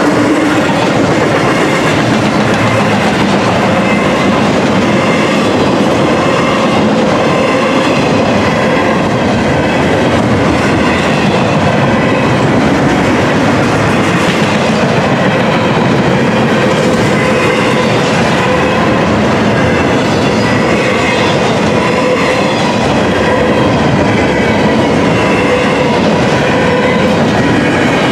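Double-stack intermodal freight cars rolling past at close range: a loud, steady rumble of steel wheels on the rails, with faint steady ringing tones running through it.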